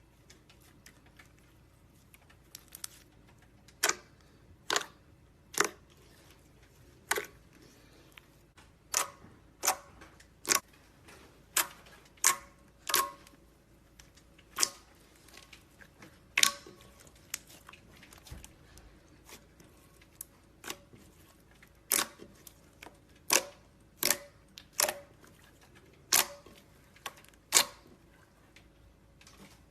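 Slime being poked and squeezed, giving a string of sharp pops and clicks at irregular intervals, roughly one a second, with a short quieter spell about two-thirds of the way through.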